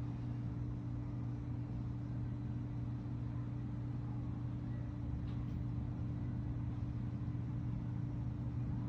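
Steady low rumble of city traffic with a constant low hum running under it, unchanging throughout.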